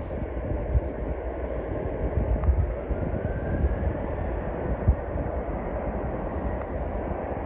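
Airliner engines heard from beside the runway as a steady rumbling noise, with low thumps of wind on the microphone.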